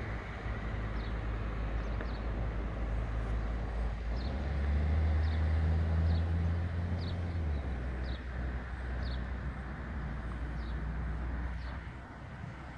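Low, steady vehicle engine rumble with general traffic noise, swelling louder for a few seconds in the middle. A bird gives a short, high, falling chirp about once a second throughout.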